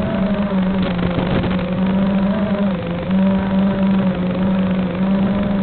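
Small motor of a radio-controlled aircraft running with a steady hum whose pitch wavers slightly up and down, and a lower drone that cuts in and out a few times.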